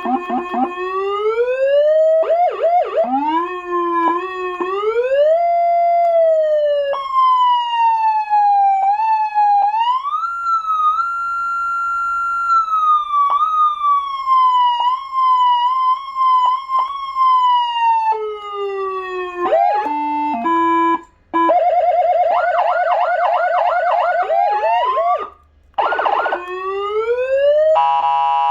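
Electronic vehicle siren, an AS940 400 W siren amplifier through a siren speaker, switched through its tones: slow rising and falling wails, a choppy stepped stretch, then a fast rapid warble. It cuts out briefly twice as the tone is changed, and ends on a rising sweep.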